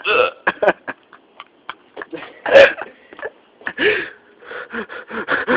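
A man hiccuping: short, sudden hiccups, the loudest about two and a half seconds in and another near four seconds, with breaths and small mouth noises between them.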